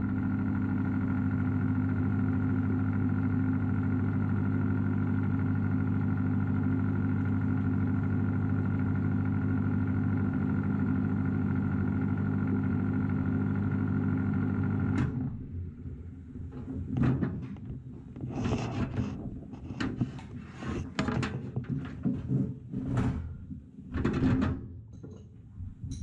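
Microwave oven running with a steady hum that cuts off abruptly about fifteen seconds in. After it stops come irregular knocks and clatters as the oven door is opened.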